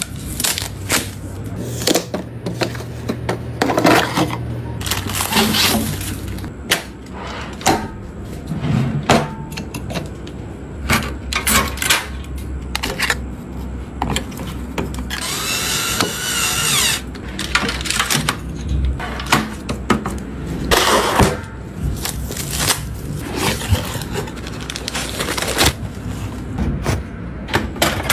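Computer parts being unboxed and fitted by hand: a string of sharp clicks, taps and knocks of plastic and metal, with a brief whir a little past the middle.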